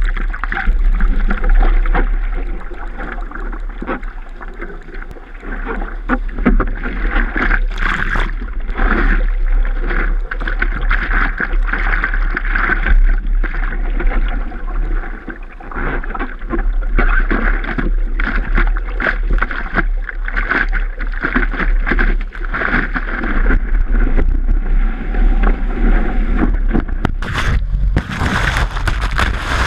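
Seawater splashing and sloshing against a surfboard and its nose-mounted action camera as a surfer paddles and sits on the board, over a steady low rumble on the microphone. Near the end a louder, hissing rush of water as water washes over the camera.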